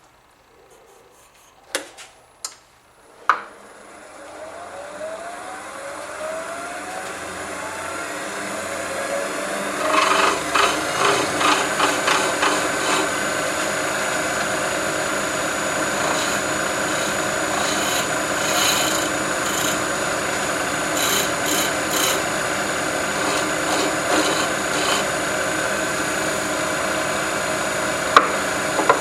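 A few knocks, then a wood lathe spinning up with a rising whine. From about ten seconds in, a turning tool cuts the spinning stabilized buckeye burl pen blank with a steady rasping scrape.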